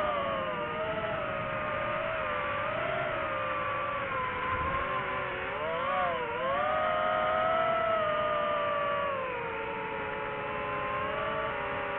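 DJI FPV drone's motors and propellers whining, the pitch rising and falling with the throttle, with a quick dip and rise about halfway through.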